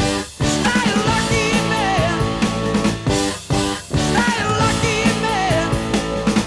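Hard rock band recording with drums, bass, guitar and keyboards playing over a steady beat, and a melody line wavering in pitch above them.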